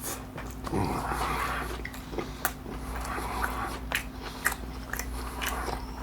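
Close-miked chewing of a mouthful of fried fish and shrimp taco in a hard, crispy taco shell: wet mouth sounds broken by sharp crunches every half second to a second.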